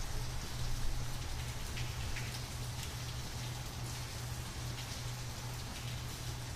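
Steady rain-like hiss with scattered faint ticks, over a low hum that pulses about twice a second.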